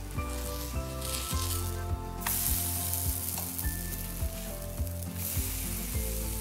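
Oat and banana pancakes sizzling in oil in a nonstick frying pan, the sizzle growing louder about two seconds in. Background music with a low beat plays under it.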